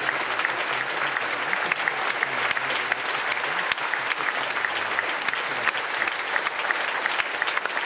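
A theatre audience applauding, dense steady clapping.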